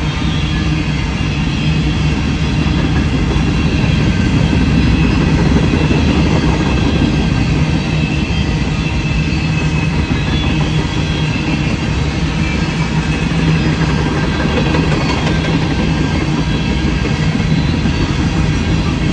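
CSX freight train rolling past at track level: a steady rumble of cars on the rails with wheel clacking and a thin, high wheel squeal over a low steady hum.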